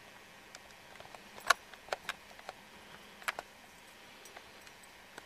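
A few sharp, irregular clicks and taps, the loudest about a second and a half in, over a steady faint hiss.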